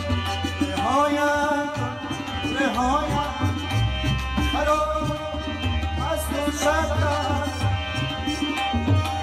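Afghan instrumental interlude: tabla keeps a steady beat of low, booming strokes under a melodic line whose notes slide up into place.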